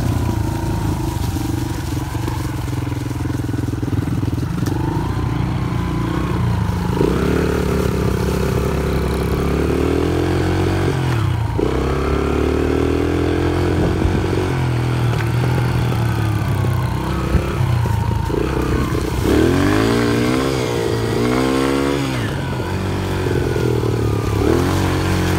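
Small dirt bike engine running, its pitch rising and falling as the throttle is opened and closed, with several quick revs, the strongest about two-thirds of the way through.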